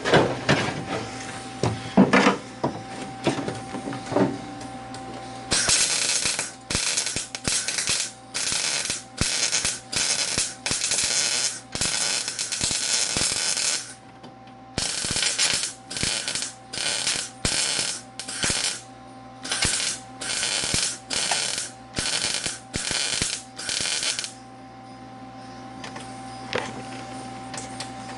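Wire-feed welder laying a run of short stitch welds, each a second or less of crackling with short gaps, to close cracks and holes in a snowmobile chassis. A few knocks come first as the gun is set in place, and the welding stops about four seconds before the end.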